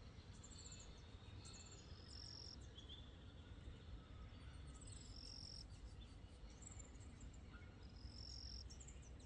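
Near silence: faint outdoor ambience with a low rumble and scattered short, high-pitched chirps.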